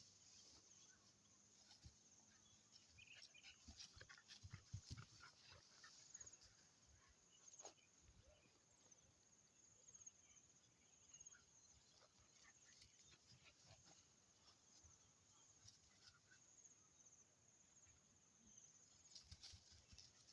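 Near silence, broken by faint scattered clicks and knocks, with a faint high chirping throughout.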